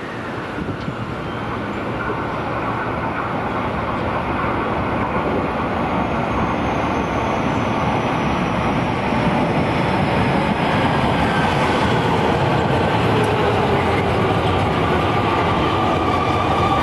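JR West 223 series 5000 electric multiple unit, coupled to a 5000 series unit, running into a station platform, its running noise growing steadily louder as it approaches. In the last few seconds a whine falls in pitch as the train slows.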